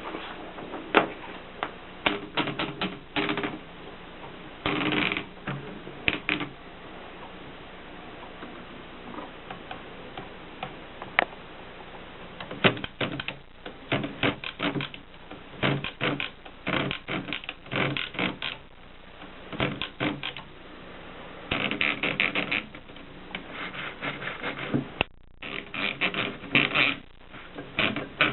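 Mercedes 6 typewriter being typed on: keys striking in irregular runs of quick clacks with short pauses between them, only a few scattered strikes for several seconds in the middle.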